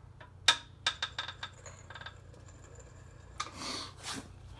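Metal clinks from a Mustang front suspension as the lower control arm is jacked up against the coil spring: one sharp click about half a second in, then a quick run of lighter clicks with a faint metallic ring, and a short rushing hiss near the end.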